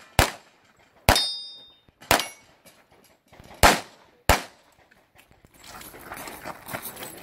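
Pistol shots fired in a string, five over about four seconds, one followed by the ringing of a struck steel target. Then hurried footsteps crunching on gravel as the shooter moves to the next position.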